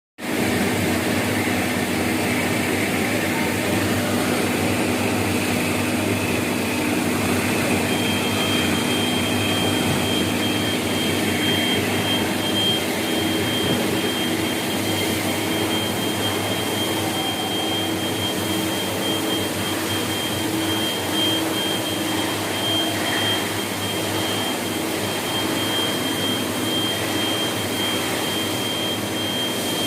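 Metalworking machine running steadily while cutting metal with a blade, a dense continuous noise over a low hum. About eight seconds in, a thin high steady whine joins and holds.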